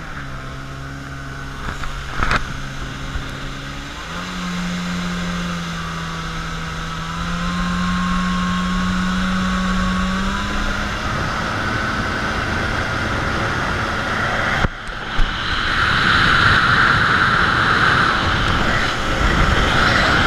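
Jet ski engine running at a steady pitch, then opening up about four seconds in and climbing slowly in pitch as it gathers speed. From about fifteen seconds in, a louder rushing noise of the craft at speed takes over.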